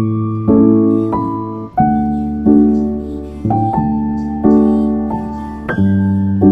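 Background piano music: soft chords struck about once a second, each left to fade.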